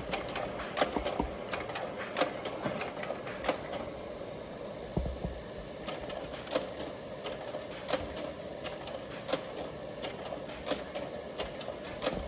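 Kodak Ektagraphic III slide projector running, its cooling fan giving a steady hum, with many light, irregular clicks from the machine throughout.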